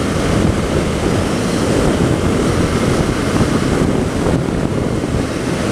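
Steady wind rush over the microphone of a moving motorcycle, with the Honda CB300R's single-cylinder engine and road noise underneath.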